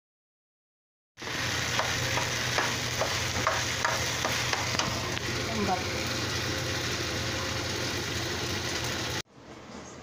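Food frying in a frying pan with a steady sizzle, while a silicone spatula stirs it and scrapes and taps against the pan. It starts abruptly about a second in and cuts off suddenly near the end, leaving quieter room sound.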